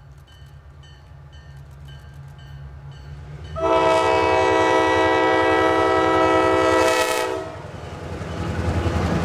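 Pair of EMD FP9A diesel locomotives approaching, their engines rumbling louder as they near, while the air horn sounds one long blast of about four seconds starting a little over three seconds in. The horn starts again just at the end as the locomotives pass.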